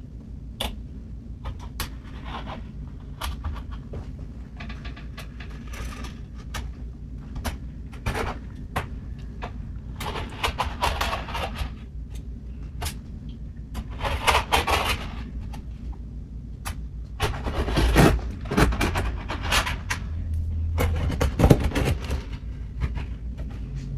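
Utility knife blade scraping and cutting through the old caulk seal around a kitchen sink's rim, in repeated rasping strokes with scattered sharp clicks and knocks of the blade. A low steady hum runs underneath.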